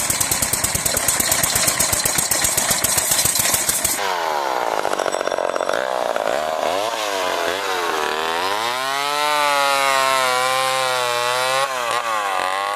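An old chainsaw's engine running: rough, rapid firing for about four seconds. Then, after a cut, it revs up and down with a smoothly rising and falling pitch before settling to a steady high run.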